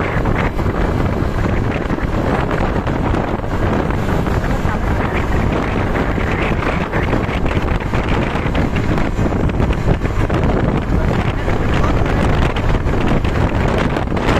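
Steady wind buffeting the microphone over the low rumble of a moving road vehicle.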